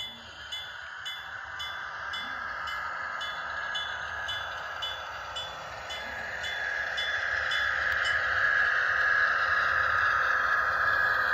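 Model train locomotive ringing its bell about twice a second, the strikes fading out about halfway through, while the train's running noise grows steadily louder as it approaches.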